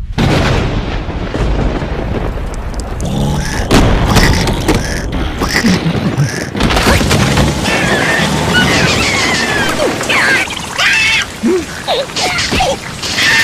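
Cartoon soundtrack of rain and booming thunder over music, starting suddenly with a dense hiss and low rumble and several loud booms. From about halfway through, squeaky, wavering cartoon character voices come in.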